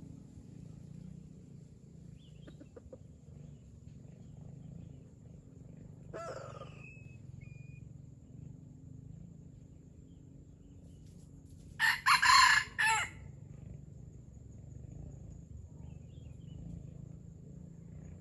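Red junglefowl rooster crowing once about twelve seconds in, a short, clipped crow of about a second. A fainter, shorter call comes about six seconds in.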